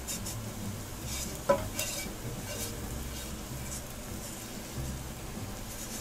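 Cooked minced chicken-and-pork scraped with a spatula from a frying pan into a hot pot of oil and toasted curry powder, scraping and sizzling. There is one sharp metallic clink of utensil on pan about a second and a half in.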